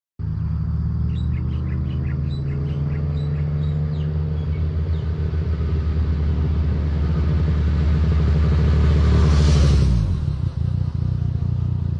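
Yamaha Tracer 900 motorcycle's three-cylinder engine running steadily as the bike approaches, growing louder to a peak about nine and a half seconds in, then dropping in pitch as it passes by.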